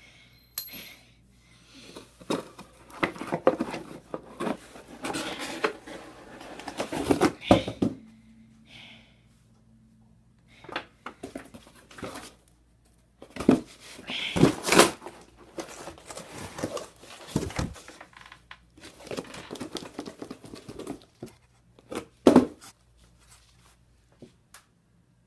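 Cardboard shipping box being torn open and rummaged through by hand: flaps and packing tape ripping, cardboard rustling and crinkling in irregular bursts with short pauses and a few sharper cracks.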